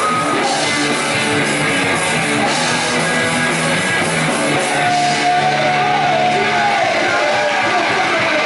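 Punk rock trio playing: electric guitar, bass and drums, with a voice singing over the band partway through.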